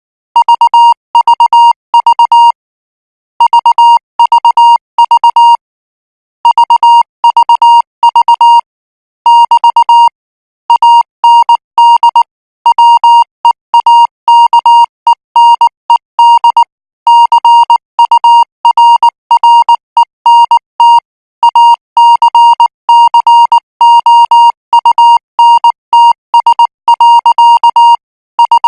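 Morse code practice signal at 18 words per minute: a single high-pitched beep tone keyed on and off in short and long marks (dots and dashes), sent in groups with brief pauses between them.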